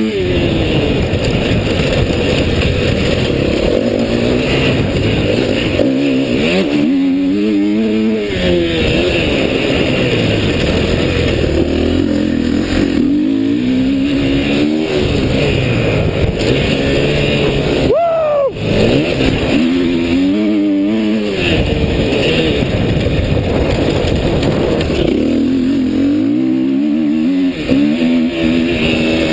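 Dirt bike engine under way on a trail, its pitch climbing and falling again and again as the throttle is opened and closed, with a brief sharp cut in the middle.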